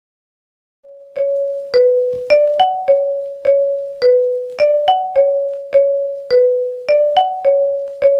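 A ringtone melody of struck, bell-like keyboard notes, starting about a second in. The notes come at an even pace of nearly two a second, each fading before the next, in a short phrase that repeats.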